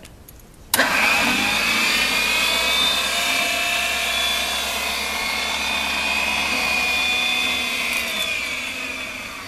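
Vintage Van Dorn valve grinder's grinding-wheel motor starting suddenly just under a second in and running with a steady high whine, which begins to slow and fade near the end.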